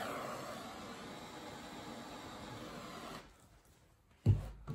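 A handheld electric blower runs steadily, fading slightly, then cuts off abruptly about three seconds in. About a second later comes a sharp low thump, the loudest sound, followed by a smaller knock.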